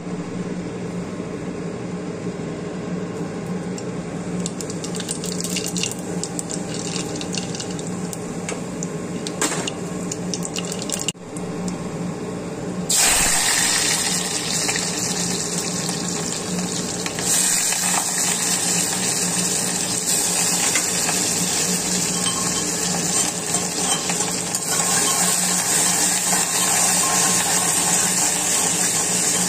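Hot oil sizzling in an aluminium kadhai on a gas stove, a steady hiss over a low hum. About halfway through the sizzle suddenly grows louder and brighter, and chopped onions are frying in the oil.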